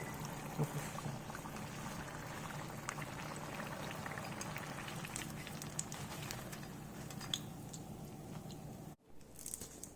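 Spring rolls deep-frying in hot peanut oil: a steady sizzling and bubbling with small crackles, the bubbling having eased as the rolls near doneness. It cuts off abruptly about nine seconds in.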